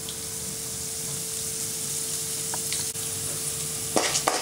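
Chana dal sizzling in hot oil in a kadai, a steady frying hiss that slowly swells. Near the end a spatula starts stirring, scraping against the pan in quick strokes.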